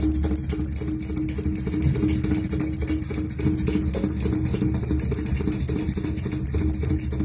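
Engine-driven piston air compressor running steadily: a low, even drone with a fast regular pulse, the kind of machine sound taken for tunnel digging.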